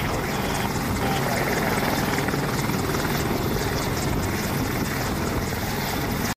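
AH-64 Apache attack helicopter in flight: steady rotor and engine noise, cut off abruptly at the very end.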